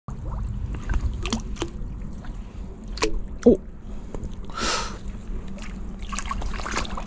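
Wading in shallow, muddy river water: water trickling and sloshing around the legs, with a few sharp knocks as a fishing rod used as a staff is jabbed into the mud bottom. About halfway through there is a short splash.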